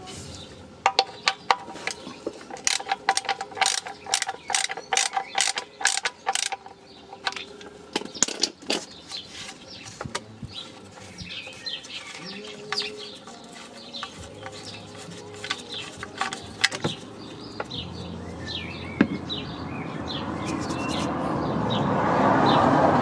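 Ratchet wrench clicking in quick strokes for several seconds, loosening fasteners under the car, with a few knocks after. Birds chirp through the second half, and a broad hiss swells near the end.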